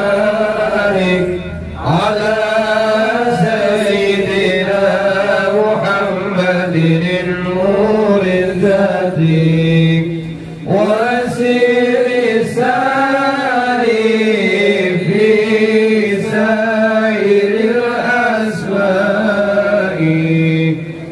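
Islamic devotional chanting of sholawat or dzikir in long, wavering phrases that rise and fall in pitch. There are brief pauses for breath about two seconds and ten seconds in.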